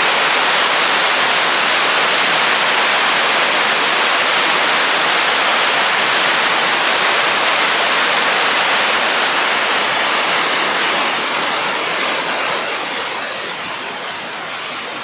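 Willow River falls running in snowmelt flood: a loud, steady rush of high water, easing slightly over the last few seconds.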